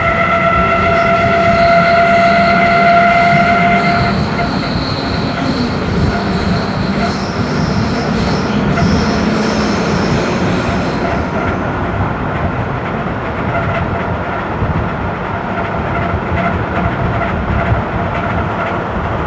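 Berlin S-Bahn class 485 electric train heard from inside while running at speed: wheels rumbling on the rails with clicking of rail joints. Over it runs a steady electric whine in a few tones, which jumps higher about four seconds in and stops about eleven seconds in.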